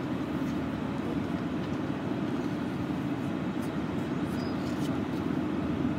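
Steady low rumble of vehicle running noise, with a few faint light clicks over it.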